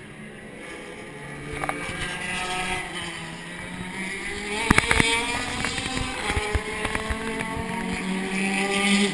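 Race car engines on the circuit, several engine notes rising and falling as the cars accelerate and change gear, getting louder toward the end. A few sharp clicks sound about halfway through.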